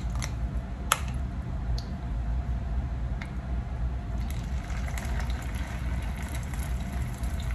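A spoon scooping a wet mix of ground beef and egg, with a sharp clink about a second in. About four seconds in, hot oil starts to sizzle as the mixture goes into the pan. A steady low rumble runs underneath.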